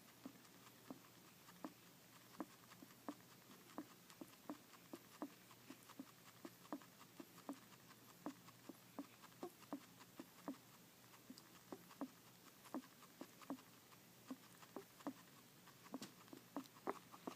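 A pet animal's strange noise while eating: a long, even run of short, soft clicks, about two a second.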